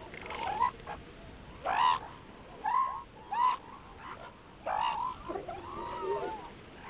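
Elephant seal pup calling: a series of about six short pitched calls, each rising then falling, with a longer wavering call near the end.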